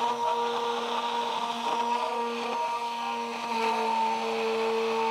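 Budget stick blender running steadily in a tall container, its blade held near the bottom to draw oil into egg yolk as aioli emulsifies. The motor hum steps up slightly in pitch about three and a half seconds in.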